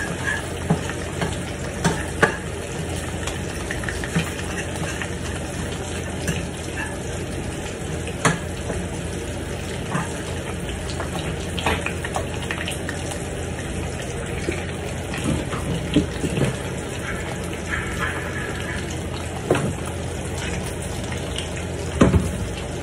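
Food sizzling in a frying pan on a burner turned up high, with scattered taps and scrapes of a utensil against the pan.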